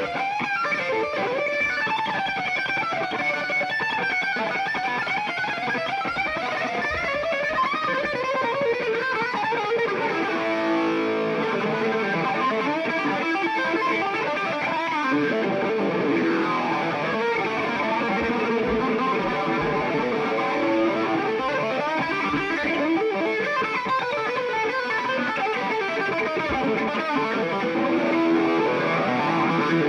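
Electric guitar playing a lead line over live band music, many of its notes bending and sliding in pitch.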